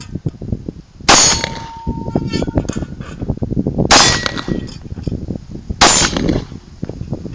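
Three 9 mm pistol shots from a Glock 19, about three seconds and then two seconds apart, each loud and sharp. The first two are followed by a brief metallic ring.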